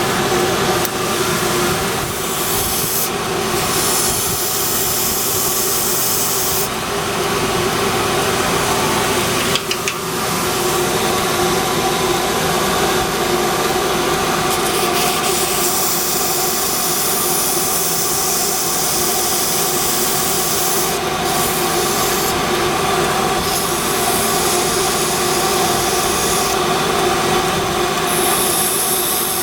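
Belt grinder running steadily while the abrasive belt grinds a slipjoint knife's handle down toward the liner. The grinding hiss rises and drops several times as the piece meets the belt and comes off it.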